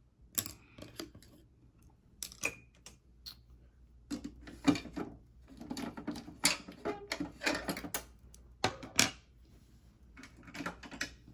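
Small makeup items being rummaged through and handled: irregular, closely spaced clicks and clatter, with a few sharper knocks in the middle.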